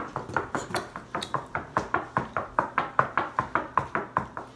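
Rapid, even tapping, about six sharp taps a second.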